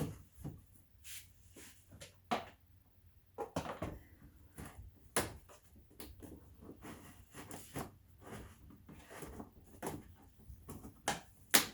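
Plastic door trim being fitted back onto a car door: a string of irregular clicks, taps and knocks as its tabs and clips are lined up and pressed into place.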